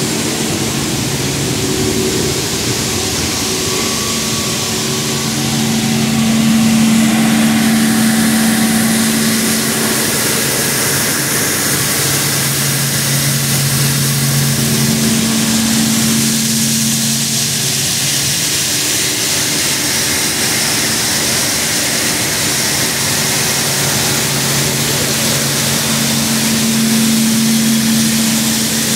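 Steady din of Pinhalense coffee-processing machinery running: belt-driven fans, pre-cleaner and vibrating screens. It makes a hum with two low tones that swell and fade in turn, over a constant airy hiss.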